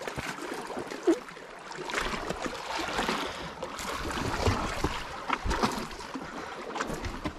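Sea water washing and splashing against the rocky shore, with wind rumbling on the microphone from about two seconds in and a few sharp clicks near the middle.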